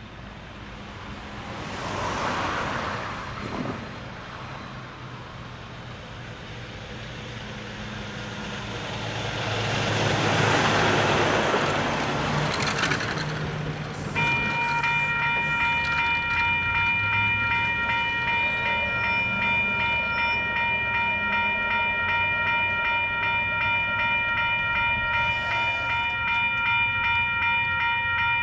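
Road traffic passes the crossing, the loudest being a semi-truck a little before halfway. About halfway through, the crossing's Western-Cullen-Hayes electronic bells start ringing, a rapid, steady ding that keeps on as the signals activate for an approaching train.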